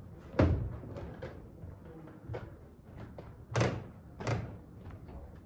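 A few irregular wooden-sounding knocks and thuds, four main ones at uneven spacing with fainter ticks between, the loudest about half a second in.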